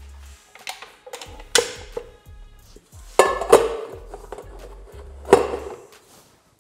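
Stainless steel mixing bowl knocking and ringing against the base of a Kenwood stand mixer as it is set in place: a few sharp metallic clanks, each with a short ring.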